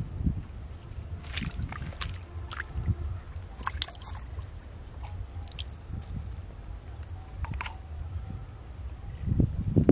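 Wet mud squelching and muddy water sloshing in a small flooded hole, with scattered small clicks and drips. About nine seconds in, a louder run of splashing as a hand works into the muddy water after a fish.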